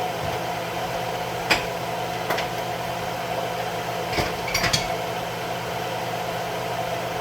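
A few sharp clinks and knocks of kitchen utensils against a pan, once about a second and a half in and then a quick cluster of three near the middle, over a steady mechanical hum.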